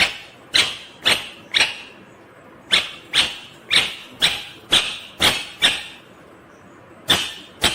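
Ringneck parakeet calling: a string of short, sharp calls, about two a second, in three runs with brief pauses between.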